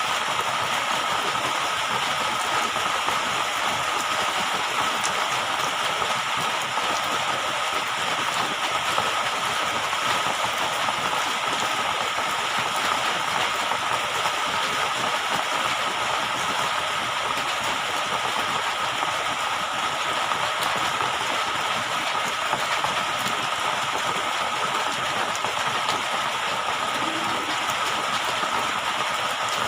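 Steady rushing, hissing water noise with a constant high tone running through it, unchanging throughout.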